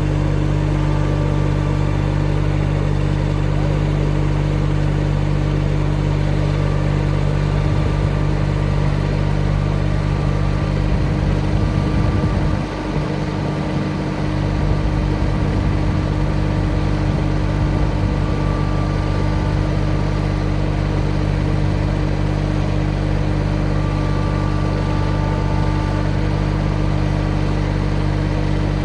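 Backhoe engine running steadily at a constant speed, with a brief dip in level about halfway through.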